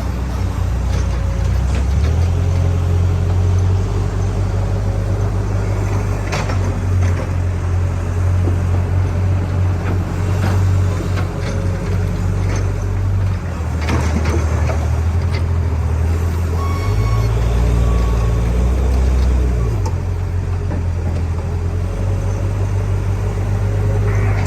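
A backhoe loader's engine runs steadily, its low rumble shifting with load a couple of times. A few sharp knocks come about six and fourteen seconds in.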